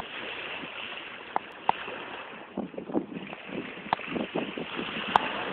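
Wind buffeting the microphone over open water, an even rushing noise broken by a few sharp clicks and knocks.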